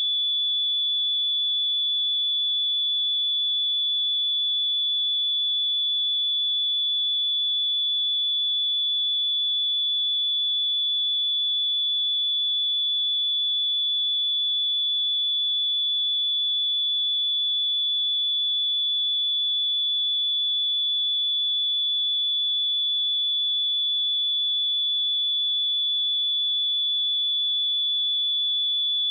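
A steady pure sine-wave test tone at 3451 Hz, a single high-pitched whistle-like note that holds at constant pitch and level.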